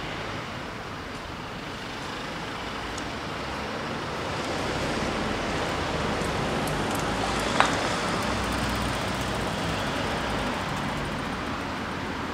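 A car driving past on the road, its tyre and engine noise swelling through the middle over steady traffic noise, with one sharp click about seven and a half seconds in.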